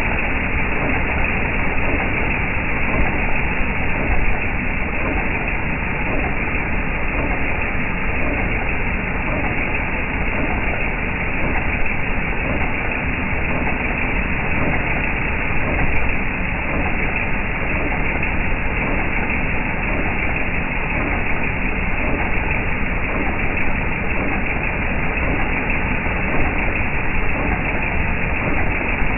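Jeep TJ Wrangler's 4.0-litre inline-six engine running steadily, heard up close; the owner is trying to track down a knocking noise from it.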